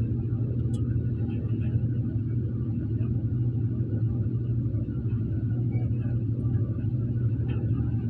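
Crawler bulldozer's diesel engine running steadily, a deep low drone, with one sharp click about a second in.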